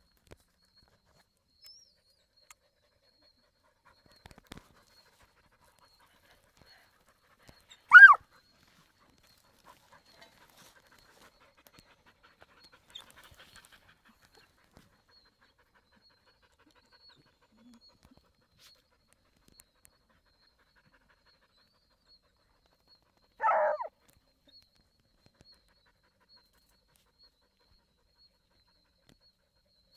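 A hound working an armadillo burrow gives two short yelps about fifteen seconds apart. The first, about eight seconds in, is the louder.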